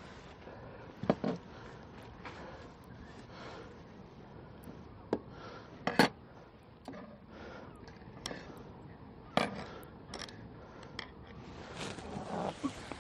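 Scattered clicks, knocks and scrapes of hand tools working on a sailboat's guardrail fittings at a stanchion base, as the guardrail lashing is undone. A few sharper knocks stand out, the loudest about six seconds in.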